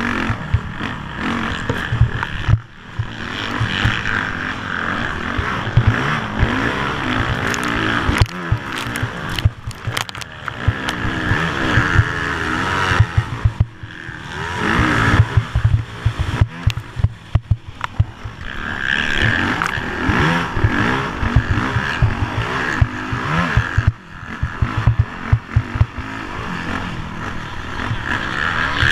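Motorcycle engine revving up and down repeatedly, heard from an onboard camera, with constant wind buffeting and knocks from the ride.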